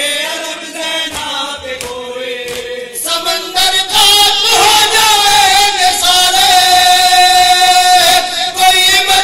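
Male voices chanting a noha, a Shia Urdu lament, into microphones, the lead voice carried by others in unison. About three seconds in the chant grows louder, and a long held note follows.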